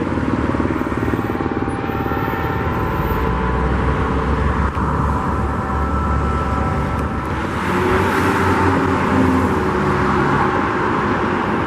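Road traffic running steadily past, a continuous rush of car engines and tyres with a passing engine hum standing out about eight seconds in.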